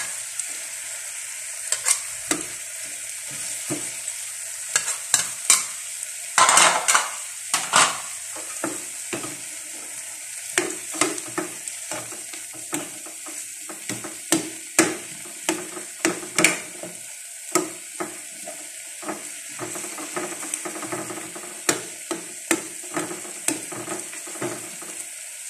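Tomatoes, onions and fermented black beans (tausi) sizzling as they are sautéed in a frying pan, with a metal spoon stirring them and knocking and scraping against the pan at irregular moments throughout.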